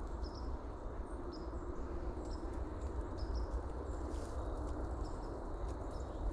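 Outdoor field ambience: a steady low rumble of wind on the microphone, with short high chirps repeating irregularly every half second to a second.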